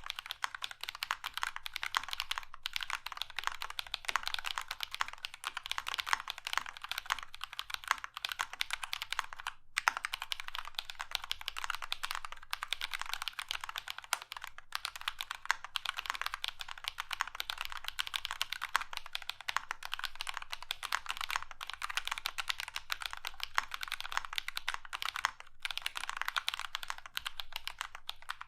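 Fast, continuous typing on a custom 40% mechanical keyboard with lubed Drop Holy Panda tactile switches and PBT keycaps, mounted on a foam-dampened acrylic plate in a frosted acrylic case. It has a dense run of keystroke clicks and bottom-outs with a few brief pauses, notably about ten seconds in.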